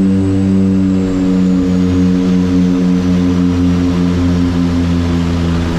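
Twin turboprop engines and propellers of a small commuter plane droning steadily in the cockpit during the landing roll, the drone pulsing regularly, with a faint high whine that slowly falls in pitch.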